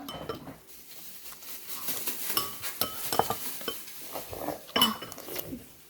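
Cutlery clinking and scraping against a bowl of soup, with several sharp clinks that ring briefly, scattered irregularly.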